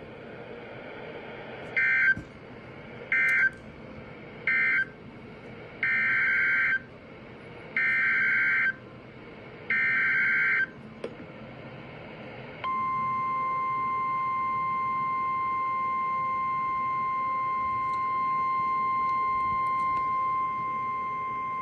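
NOAA Weather Radio Specific Area Message Encoding (SAME) data bursts: three short buzzy bursts ending the previous alert, then three longer bursts heading the next one. They are followed, a little past halfway, by the steady single-pitched warning alarm tone, about nine seconds long, that announces the next warning.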